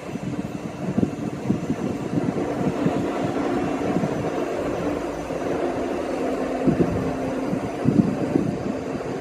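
ScotRail passenger train moving past at close range: a steady drone with a held hum through most of it, broken by irregular low thumps.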